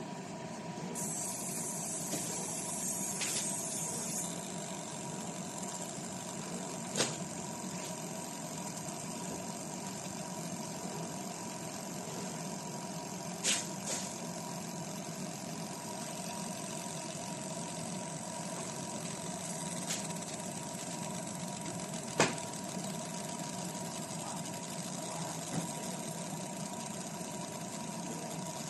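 Handheld laser marking machine running while it engraves a metal plate: a steady mechanical hum with a thin high tone through it. A few short sharp clicks break in, the loudest about two-thirds of the way through.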